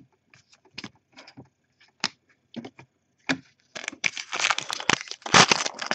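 Scattered light clicks of trading cards being handled and set down. From about four seconds in, a foil trading-card pack crinkles and tears as it is opened.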